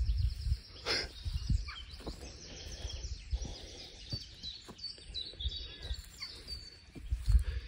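Small birds singing and chirping, a continuous run of high twittering notes, over low thumps and rumbles on the microphone, loudest near the end.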